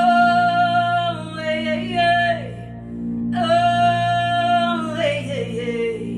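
Two long wordless sung calls in a high voice, each held steady and then falling in pitch at its end, over a steady low instrumental drone.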